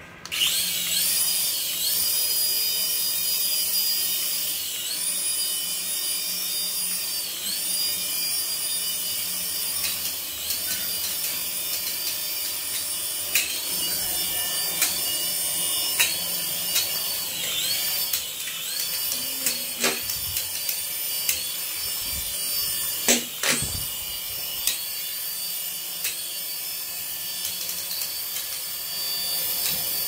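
Toy RC helicopter's small electric motors and coaxial rotors running in a high whine that dips and rises again every second or two as the throttle changes. A couple of sharp knocks come about two-thirds of the way through.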